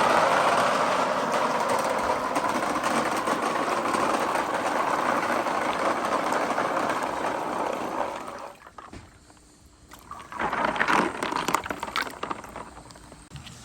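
Many marbles rolling and clattering together down a marble run track in a dense, continuous rattle that thins out after about eight seconds. After a short lull, scattered clicks and rattles follow as the last marbles roll through.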